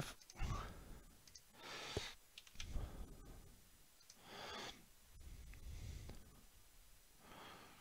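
Faint mouse clicks and soft breathing close to the microphone, the breaths coming every second or two.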